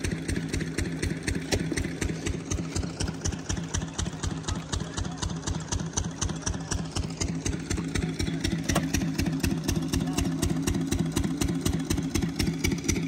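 Single-cylinder stationary diesel engine of an irrigation pump set running steadily under load, with an even, fast beat of firing strokes.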